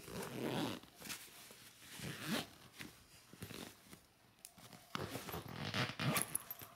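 Zipper on a fabric packing cube stuffed full of clothes being pulled closed in several short rasping pulls, with a pause in the middle, and fabric rustling as the cube is pressed shut.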